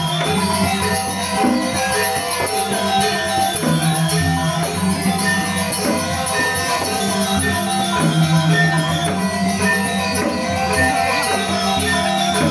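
Balinese gamelan music: ringing bronze metallophones and gongs playing a dense, steady figure over a low note that shifts every few seconds.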